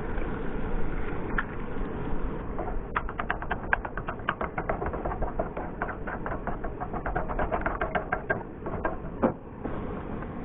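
Eggs cooking in a hot frying pan on a camp stove, with a steady hiss under everything. From about three seconds in, a spatula taps and scrapes rapidly in the pan as the eggs are scrambled, with one sharper knock near the end.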